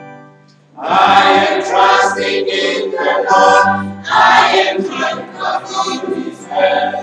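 Small mixed group of young female and male voices singing a hymn together. After a brief pause for breath, the singing comes back in loudly about a second in and carries on in phrases.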